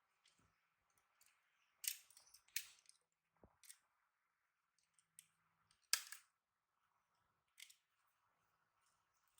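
Scattered faint, sharp clicks and crinkles, loudest about two seconds in, again shortly after, and about six seconds in.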